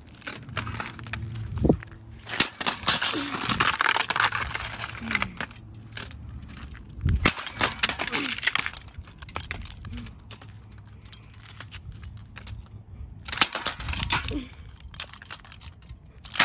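A plastic-cased 8-track tape player being smashed on pavement: a few heavy knocks, with cracking and crunching of the housing and its parts in between.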